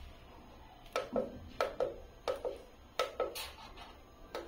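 Keys clicking on the small handheld keypad of a token display controller as a token number is typed in: about ten short clicks, some in quick pairs.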